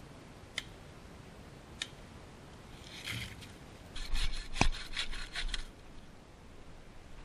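Bow saw cutting a thin spruce log: a quick run of about six rasping strokes about four seconds in, with one sharp knock among them.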